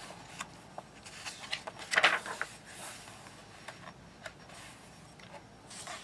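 Paper pages of a paperback coloring book being handled and turned: a soft paper rustle about two seconds in and another near the end, with light taps and rubs of hands on the pages.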